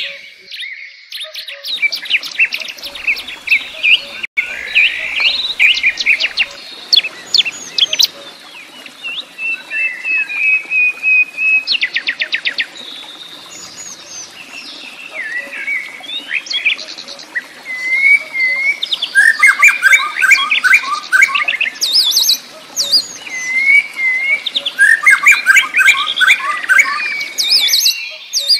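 Small birds chirping and trilling almost without pause, with many quick whistled notes and fast repeated trills overlapping, over a faint steady hiss.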